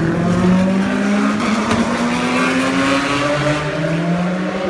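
Sports car engines accelerating past on a race circuit's main straight. One engine's pitch rises steadily for about three and a half seconds, then a second car's engine comes in and rises near the end.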